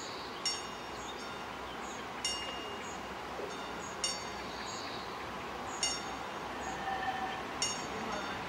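Level-crossing warning bell striking five times, evenly about every two seconds, each strike a bright ringing note, over a steady low noise from the railway yard.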